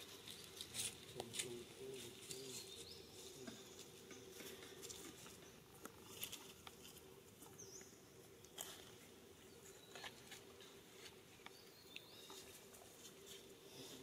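Near silence: a faint steady hum with scattered soft clicks and ticks.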